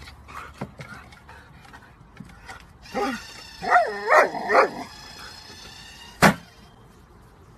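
A dog barking and yipping excitedly about four times in quick succession beside an automatic tennis-ball launcher, over a steady high whine. About six seconds in, a single sharp loud thwack as the launcher fires the ball.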